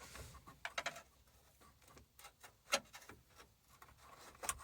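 Faint, scattered clicks and light scraping of a flat screwdriver prying at the plastic retaining clips of a 2004 Cadillac Escalade EXT's dash-mounted climate control module, with a sharper click a little under three seconds in and another near the end.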